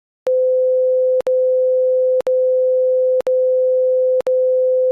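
A steady, single-pitched electronic tone, low-mid in pitch, starting a moment in and broken by a click and a very short dropout about once a second.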